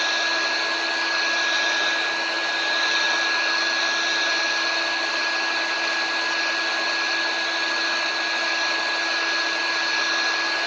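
Heat gun with a conical nozzle running steadily: the even rush of its fan and blowing air, with a constant thin whine over it.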